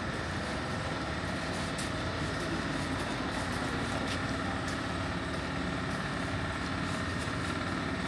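Street traffic noise with a vehicle engine running steadily.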